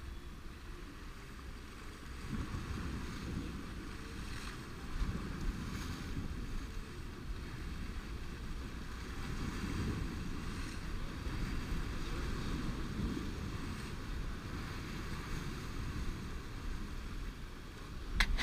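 Surf washing and breaking over shoreline rocks in repeated swells, with a low rumble of wind on the microphone. A few sharp clicks near the end.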